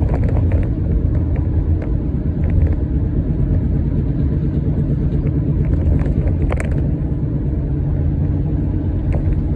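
Loud, steady low rumbling and growling heard inside the cabin of a 2013 Toyota Highlander while driving: the sign of a bad passenger front wheel bearing. A few sharp knocks from the phone being handled sit on top.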